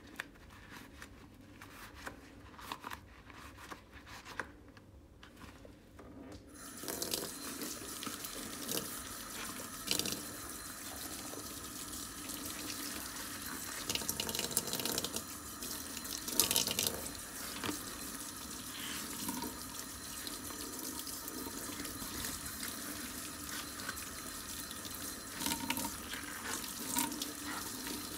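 Soft squelches of rubber-gloved hands working a soapy sponge, then about six seconds in a tap is turned on and water runs steadily into a stainless steel sink, splashing as the sponge is rinsed under the stream.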